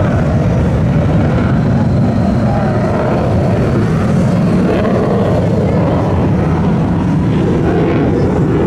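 Engine noise of a military jet flying an air show display, a loud steady rumble with no breaks.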